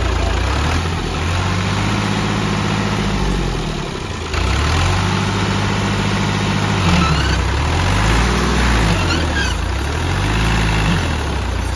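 Ghazi tractor's diesel engine revving up and down again and again as it strains against deep mud, its rear wheels churning: the tractor is stuck with a rotavator and trying to pull itself free.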